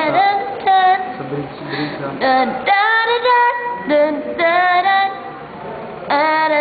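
A female voice singing a slow melody in short phrases, with some long held notes.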